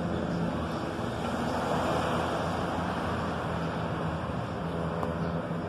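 Formation of aircraft passing overhead: a steady engine drone with a low hum, mixed with a rushing noise.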